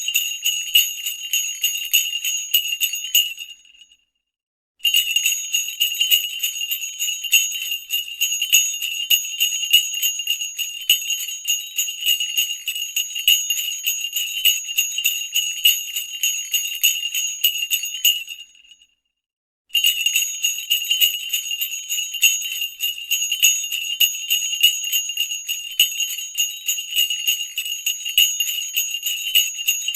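Sleigh bells shaken in a steady, rapid jingle, bright and high-pitched. It fades out and stops for about a second twice, a few seconds in and about two-thirds of the way through, then starts again.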